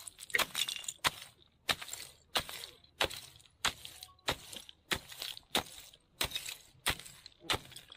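A hand ice chisel striking and chopping a hole through foot-thick lake ice, one sharp cracking blow about every two-thirds of a second.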